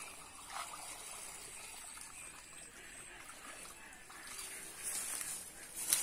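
Pond water trickling and dripping out of a woven bamboo fishing basket as it is lifted from shallow water, with light splashing from wading. A few louder short splashes or rustles come near the end.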